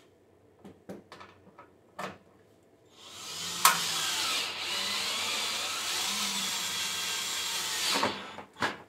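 Cordless drill with a 10 mm socket running for about five seconds, spinning a bolt back into a lawn mower's engine top cover. A few light clicks and taps come before it starts and just after it stops.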